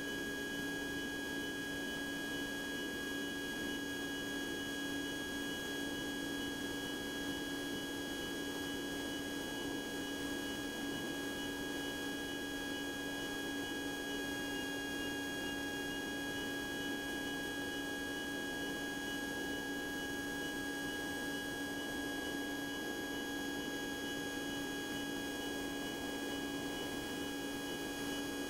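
Steady, unchanging drone of a Cessna 150 in cruise flight, a low hum with a few thin high tones held over it.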